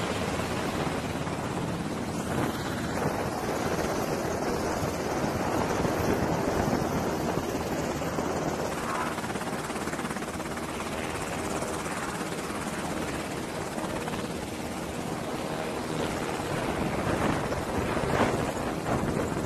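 MH-60R Sea Hawk helicopters running, their rotor blades and twin turboshaft engines making a steady, loud rotor noise that grows a little louder near the end.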